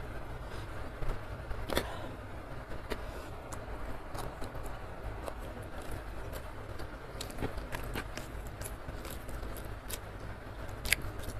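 Close-miked eating by hand: wet mouth clicks and chewing, with fingers pinching rice and picking up greens, heard as a run of scattered sharp clicks over a low steady hum.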